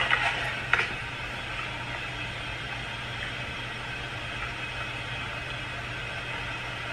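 Steady low hum with an even hiss behind it, a constant background drone with no distinct event. A few faint short sounds come in the first second.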